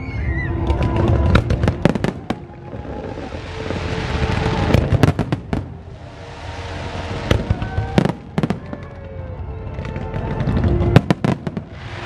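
Fireworks display: many sharp bangs of shells bursting in quick succession, with several swells of crackling hiss between them.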